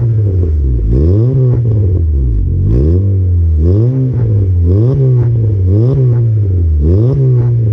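Honda City's four-cylinder engine breathing through an aftermarket cat-back exhaust, revved repeatedly while stationary: about six blips, each rising to around 4,000 rpm and dropping back, a little over a second apart.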